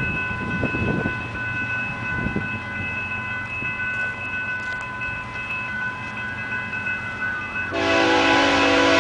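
Canadian Pacific freight locomotive's air horn, the train still out of sight, sounding one long multi-note chord that starts about eight seconds in and is the loudest sound here. Under it, a few steady high ringing tones.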